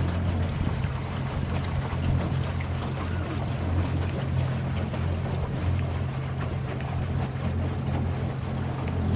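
Electric boat under way: a steady low motor hum with water swishing along the hull.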